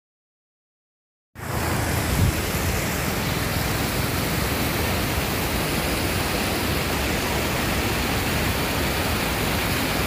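Shallow river water rushing over a stone bed, a steady even rush. It starts abruptly a little over a second in, out of silence.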